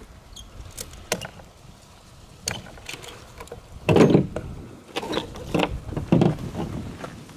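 Ratchet strap being released by hand: the metal ratchet buckle clicking and clacking several times, with the loudest clacks from about four seconds in.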